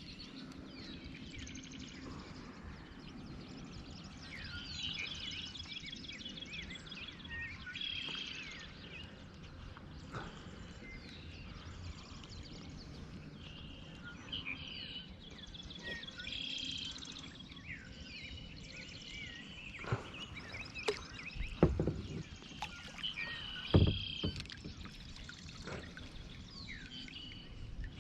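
Outdoor ambience with several birds singing in repeated chirps and trills, and two sharp knocks about two seconds apart late on.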